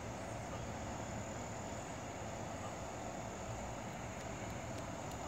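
Steady outdoor background: a low even hum with a constant high-pitched whine above it, and a few faint ticks near the end.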